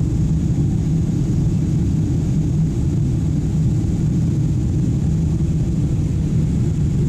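Steady cabin noise of a Boeing 777-200 climbing after take-off: twin jet engines and airflow, heard from a passenger seat as an even low rumble with a faint high hiss.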